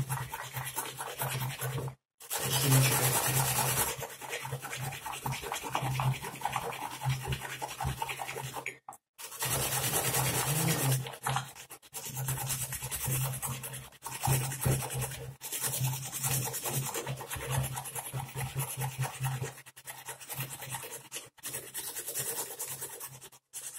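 Raw potato being grated on a hand grater: a rapid, continuous run of rasping scraping strokes, with a few short pauses.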